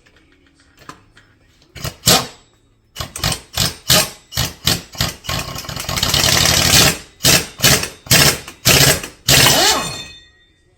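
Impact wrench hammering a clutch puller bolt into a quad's stock primary clutch to break it off the crankshaft taper: a string of short bursts with one longer run in the middle, then a few more bursts before it stops.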